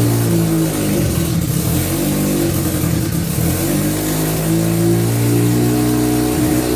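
Mazda RX-7 FD3S's freshly built twin-rotor rotary engine running on one of its first starts, its pitch rising and falling unevenly in the first half and then holding steadier, with the exhaust not yet finished.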